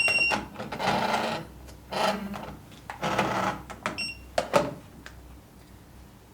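Retekess TD166 warehouse pagers alerting to a group call: a high electronic beep that stops just after the start, then three buzzing vibration bursts about a second apart. Another brief beep comes about four seconds in, followed by a few sharp clicks, and then the pagers fall quiet.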